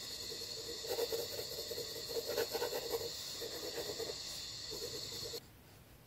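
Graphite pencil scratching on sketchbook paper in irregular shading strokes, over a steady high-pitched chirring hiss. Near the end both cut off abruptly, leaving a quieter rubbing on the paper.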